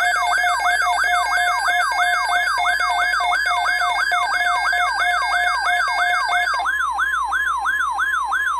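Weather alert radio's electronic siren alarm: a tone sweeping up and down about three times a second over steady beeping tones, one of which stops about two-thirds of the way through. It sounds as the radio is triggered by the alert header for a new severe thunderstorm watch.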